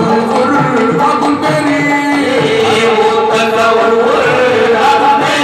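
Qawwali music: sung vocal lines over a held harmonium-like tone, with a steady hand-drum beat underneath.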